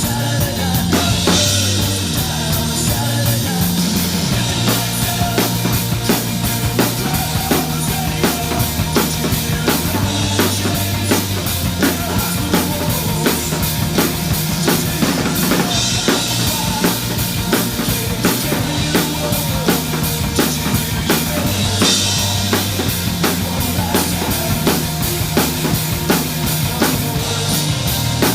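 Drum kit played along to a melodic punk rock song: a fast, steady beat on bass drum and snare, with a cymbal crash every few seconds, over the recording's bass and guitars.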